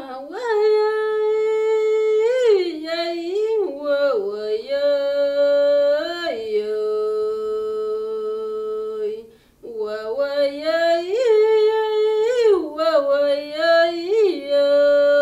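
A solo voice singing a slow, wordless melody: long held notes linked by sliding, turning ornaments, with a short breath pause about nine and a half seconds in.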